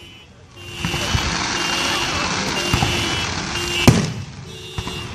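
Fireworks: a steady hissing from about a second in, then one sharp firework bang near the end. Behind it, a car alarm sounds its repeating tones.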